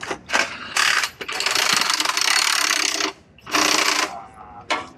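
Impact wrench running in bursts on a race motorcycle's wheel axle during a pit-stop wheel change: a couple of short bursts, one long burst of nearly two seconds from about a second in, then a shorter one near four seconds.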